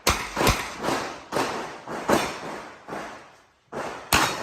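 Revolver shots fired in rapid succession during an IPSC course of fire, about two a second, each with a short echo. After a brief pause about three and a half seconds in, two more shots follow.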